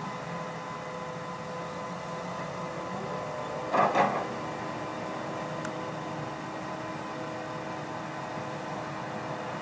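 Diesel engines of a John Deere 750K crawler dozer and a Deere 200D excavator running steadily while they work dirt, a continuous drone with a faint steady whine. A brief, louder rush of noise comes about four seconds in.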